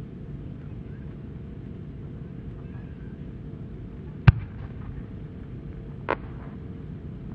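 The lift-charge boom of a large 10-gou firework shell fired from its mortar: one sharp, loud report about four seconds in, over a low, steady background rumble. A smaller pop follows about two seconds later as the shell climbs.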